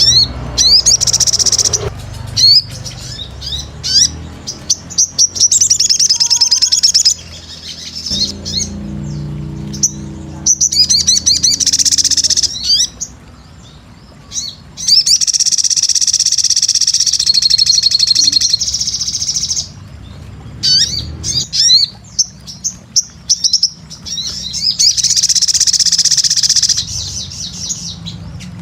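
A sogon (crimson sunbird) singing in repeated bursts of rapid, high-pitched twittering, broken by short gaps. Twice it holds a fast trill for several seconds. A faint low hum runs underneath.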